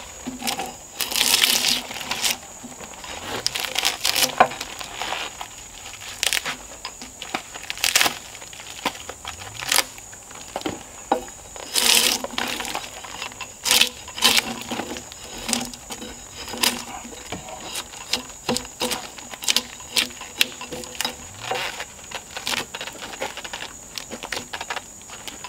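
Drawknife being pulled along a log to strip its bark: repeated scraping strokes, about one every two seconds.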